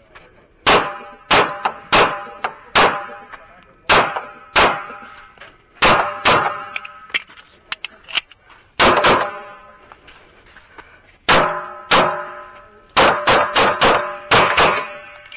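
Kimber Custom II 1911 pistol firing .45 ACP rounds: about twenty shots, mostly in pairs, with a fast string of shots near the end. Most shots are followed by a short ringing.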